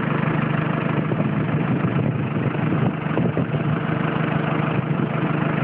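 Engine of a landfill machine idling steadily with a constant low hum.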